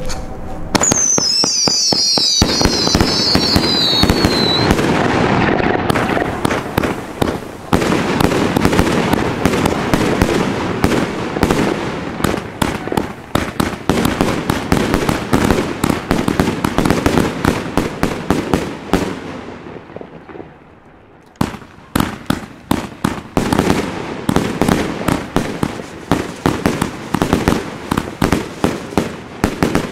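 Funke Fireball firework battery firing: a dense, continuous run of shots and crackling bursts, with a falling whistle over the first few seconds. It pauses briefly about two-thirds of the way through, then rapid shots resume.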